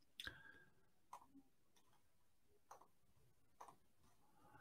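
Near silence with a few faint, irregular clicks of a computer mouse, the loudest near the start.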